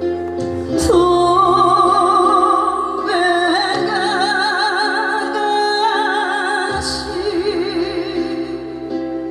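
Live performance of a slow Korean trot ballad: band accompaniment under a held melody line with heavy vibrato, with cymbal crashes about a second in and near seven seconds.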